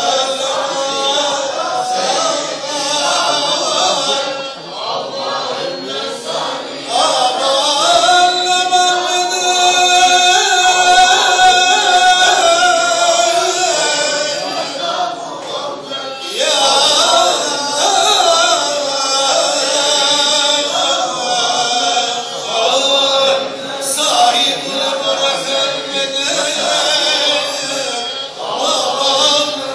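A group of men chanting together in unison, a religious chant with long held notes. It swells loudest from about a quarter to halfway through.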